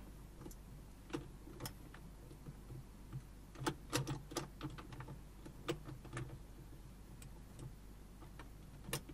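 Scattered clicks and light knocks of electronic drum kit rack hardware being handled and adjusted: pad mount and clamp parts knocking as a pad is repositioned, with a quick run of clicks about four seconds in.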